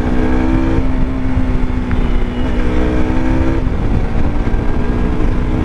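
KTM RC 200 motorcycle's single-cylinder engine running at steady riding revs, heard from the rider's seat with heavy wind rumble on the microphone. The engine note drops briefly about two-thirds of the way through, then picks up again.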